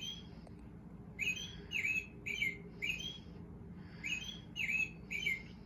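Short, clear bird chirps, each a quick rising-then-falling whistle, repeated about twice a second in groups of two or three, over a steady low hum.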